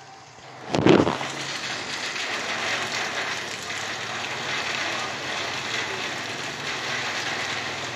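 Rain falling steadily with an even hiss, which starts with a sudden loud bang about a second in.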